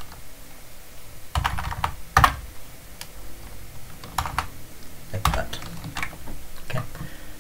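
Typing on a computer keyboard: short, scattered runs of keystrokes with pauses between them, one key strike about two seconds in louder than the rest.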